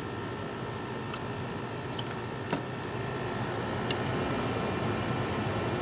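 Haier window air conditioner running on high cool: a steady fan-and-compressor noise, with a few short sharp ticks over it.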